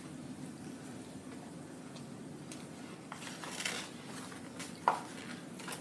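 Faint eating and food-handling noises over a steady low room hum, with a short sharp click about five seconds in.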